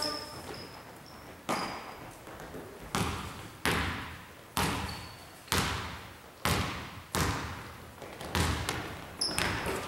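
Basketball bouncing on a hardwood gym floor: about nine irregular bounces, each trailing off in the hall's echo, with a few short, high sneaker squeaks.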